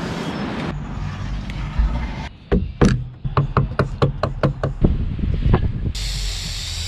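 A quick run of sharp clicks, about four a second, then an aerosol spray can hissing steadily near the end.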